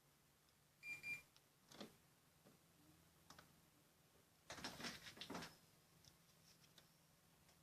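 Samsung AR09HSSF air conditioner indoor unit giving one short high beep about a second in, followed by faint clicks and a brief clattering spell around the middle, over a faint low steady hum.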